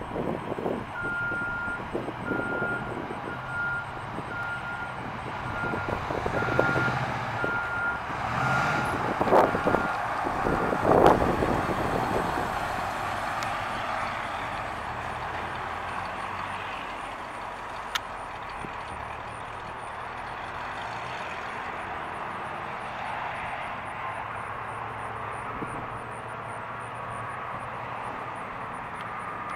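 The 1968 Chevrolet C10's 454 V8 running as the pickup drives slowly past. It swells a few times in the first dozen seconds, then settles to a steadier, quieter sound. A reversing alarm beeps steadily, about once a second, for the first ten seconds or so.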